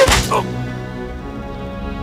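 Film score music on sustained notes, opened by one sharp hit of an arrow striking home.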